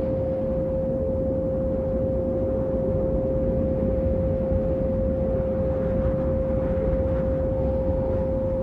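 A single steady pure tone held without a break over a low rumbling drone, as in a meditation 'healing frequency' track. A faint wavering higher tone comes in near the end.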